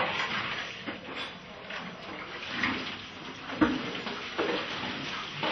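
Water running from a wall tap into a plastic basin, a steady rush with a few clattering knocks, one sharp knock loudest a little past halfway.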